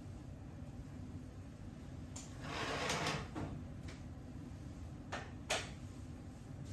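A drawer sliding with a rustle, followed by a few light clicks and two sharp knocks near the end, the last the loudest.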